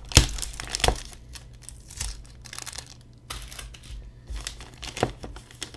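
Clear plastic bag crinkling and crackling as it is handled and pulled open, with sharp crackles at the very start and again just under a second in, and quieter rustling after.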